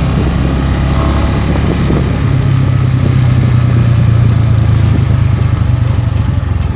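Italika RC200 motorcycle engine running steadily, getting a little louder about two seconds in.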